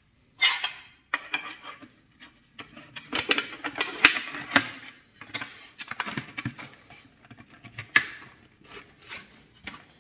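Sheet-metal balcony cover pieces handled and slid together over a butt-joint connector: thin metal scraping and clicking against metal, with a few sharp clacks.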